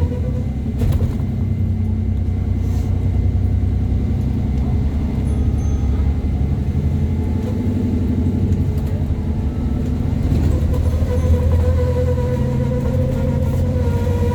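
Bus engine pulling hard under load up a hill, with a steady low rumble. A strange high-pitched squeal fades out in the first second, then comes back about ten seconds in and holds steady.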